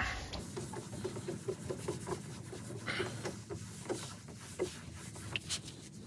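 Microfibre cloth rubbed by hand over a Corvette C5's transparent targa roof panel in quick, even strokes, with a few light clicks later on: a final hand polish of the panel.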